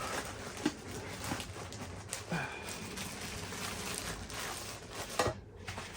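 Product packaging being handled and opened: scattered light knocks and rustling of cardboard, with a short squeak about two seconds in.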